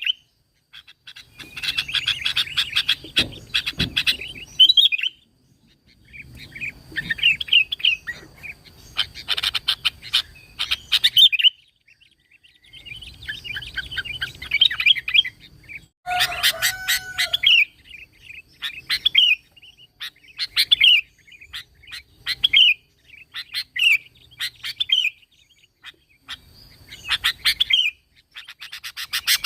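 Sooty-headed bulbul (kutilang) singing: bursts of rapid chirping phrases a few seconds long with short pauses between them. In the later part these give way to single clear notes about once a second.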